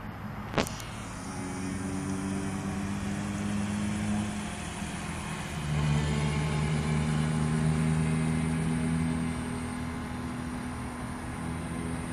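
Electric RC speedboat's brushless motor and propeller running on the water, a steady motor note that changes pitch a couple of times and grows louder for a few seconds in the middle before easing off. A sharp click sounds just after the start.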